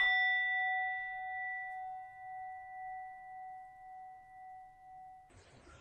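A single struck bell-like chime ringing out with several overtones and slowly fading, its level wavering in a gentle beat, cut off about five seconds in.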